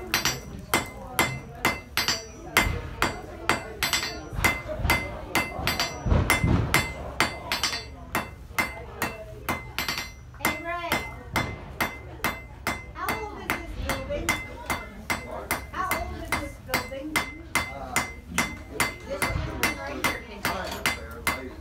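Blacksmith's hand hammer striking iron on an anvil in a steady rhythm, about two to three blows a second, each with a short metallic ring.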